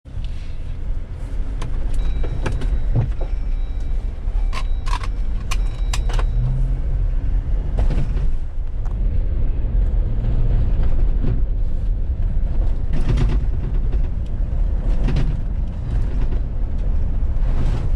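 2018 Jeep Wrangler Rubicon running, with a steady low rumble and frequent short knocks and rattles throughout.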